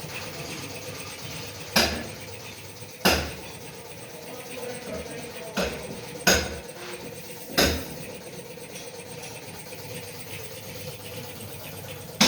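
About six sharp knocks, irregularly spaced a second or more apart, each with a short ring, over a steady low hum.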